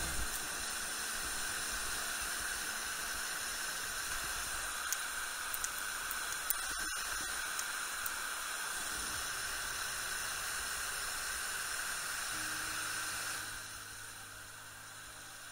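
Steady rushing hiss of a waterfall's white water pouring right beside the camera, with a few faint small clicks. Near the end it drops away and soft background music comes in.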